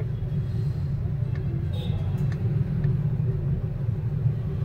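Steady low rumble of road traffic, with a few faint clicks and a brief higher tone about two seconds in.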